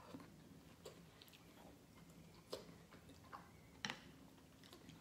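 Quiet chewing of a mouthful of fish and vegetables, with a few faint short clicks; the sharpest comes near the end as a metal fork touches the skillet.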